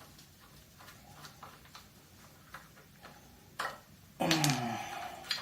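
Light metal clicks and taps of hand tools working on engine parts. About four seconds in comes a sharp click, then a louder sound of about a second that falls in pitch.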